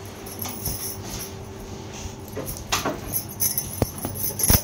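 Glass bangles clinking and fabric rustling as hands handle a stone-embroidered silk blouse, with two sharp clicks near the end, the second the loudest.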